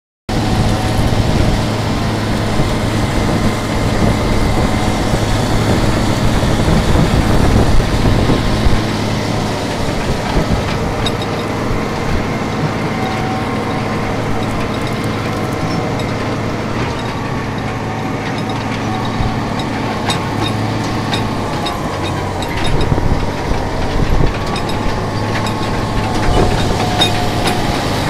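John Deere 8770 four-wheel-drive tractor's diesel engine running steadily under load, pulling an anhydrous ammonia applicator through the soil. Scattered clicks and rattles come through in the second half.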